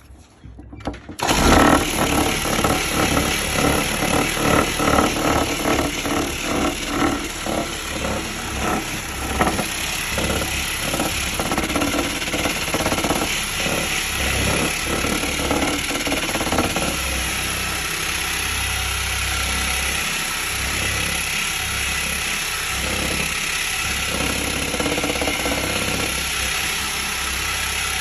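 Car buffer converted into a 10-inch orbital sander, switched on about a second in and run with a 60-grit disc against plywood. The sound is uneven and pulsing for the first half, then settles into a steadier run.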